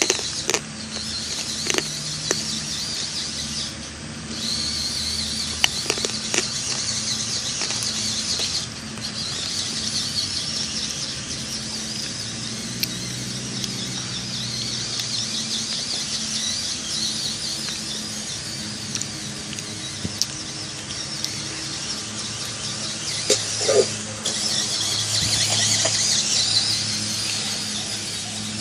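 RC car's motor and drivetrain whining as it drives, dropping out briefly three times, with a few sharp clicks and knocks.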